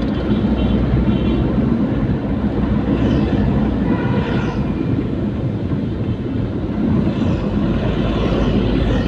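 Ambulance driving in traffic: a steady rumble of engine and road noise, with faint sliding whines about three and seven seconds in.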